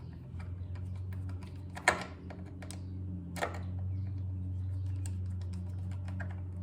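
Light clicks and taps of hands threading the oil level screw into the top hole of a Honda B100 outboard's lower unit, with two sharper clicks about two and three and a half seconds in, over a steady low hum.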